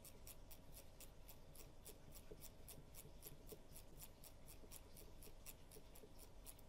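Near silence with faint, even ticking, about five ticks a second.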